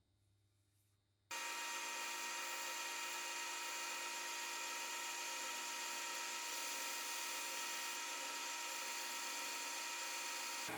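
A power tool running at a steady speed, a constant whine with several fixed tones, cutting in suddenly about a second in after near silence.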